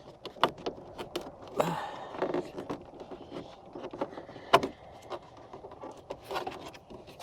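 Plastic interior trim being handled and fitted: scattered light clicks, taps and rustles, with one sharper knock about four and a half seconds in, as the seat belt upper cover is worked into place.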